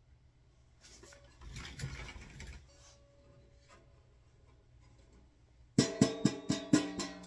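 A homemade cake-pan banjo (panjo): rustling handling noise as the instrument is turned over, then near the end its strings are plucked in a quick run of about seven ringing notes.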